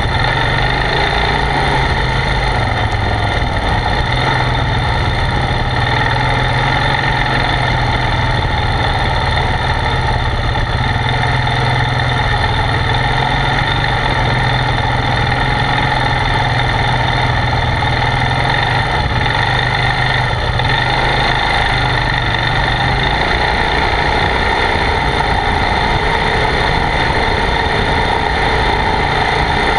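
ATV engine running steadily under way on a dirt trail, heard up close from the front of the quad. Its low engine note holds even until about two-thirds of the way through, then shifts.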